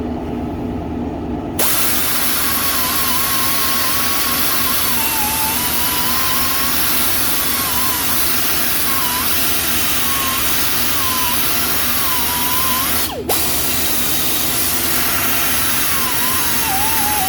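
Power tool spinning a twist-on gasket-cleaner disc against the rusty brake caliper bracket. It starts about a second and a half in, and its whine wavers in pitch as the disc is pressed into the metal. It cuts out for a moment about three-quarters of the way through, then runs again.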